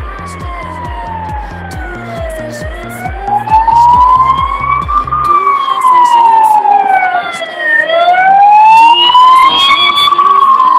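Ambulance siren wailing in a slow rise and fall of pitch, about five seconds per cycle. It grows louder as the vehicle draws close, about halfway through.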